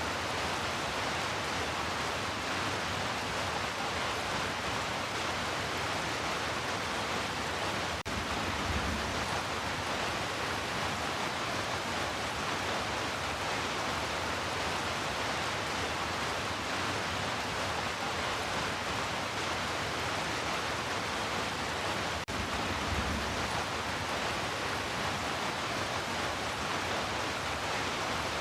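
Steady heavy rain, a dense continuous hiss, with a brief low rumble about nine seconds in and again about twenty-three seconds in.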